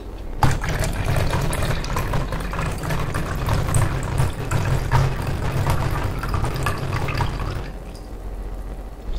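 Pale drink poured in a steady stream from a copper shaker into a hammered copper mug, starting about half a second in and stopping near the end.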